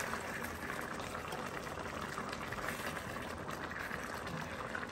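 Oxtail stew of stock, wine and tomato paste boiling in a pot, a steady fine crackle of bursting bubbles as the sauce starts to thicken.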